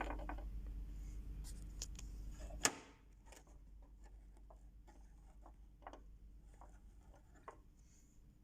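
Light clicks and cloth handling at a Brother portable sewing machine between stitching runs, as it is set up for a straight stitch. A low hum stops with a sharp click about three seconds in, followed by quieter scattered clicks.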